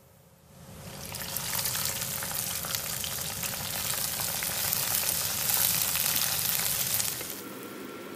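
Hot oil tempering of fried shallots, curry leaves and mustard seeds sizzling and crackling loudly as it is poured over the fish curry. It starts about half a second in, swells over the next second and cuts off about a second before the end.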